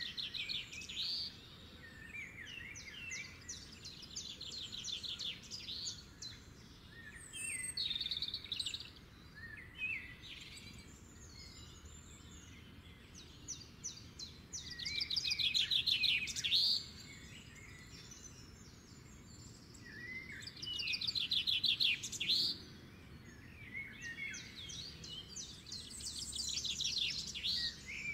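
Songbirds singing outdoors: quick trilled phrases come again every few seconds over a faint, steady background of outdoor noise.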